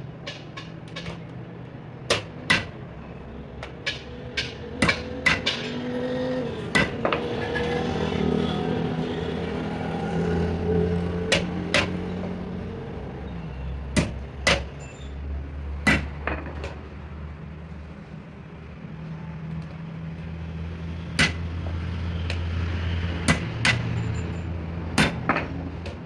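Hammer strikes on metal: about twenty sharp knocks at uneven intervals, some in quick pairs. Under them a low engine-like rumble swells and fades twice.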